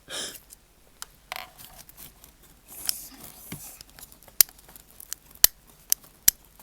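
Finger flicks made as an ASMR sound: a run of sharp clicks, about two a second, starting a little over four seconds in, after a few soft rustles.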